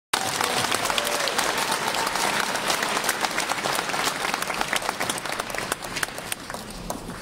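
Audience applauding, many hands clapping together, fading near the end.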